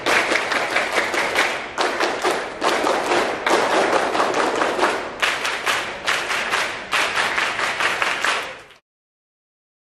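A large group of Pramuka scouts clapping in unison to a scout clap routine (tepuk): runs of quick, sharp claps broken by short pauses. The sound cuts off abruptly to silence about a second before the end.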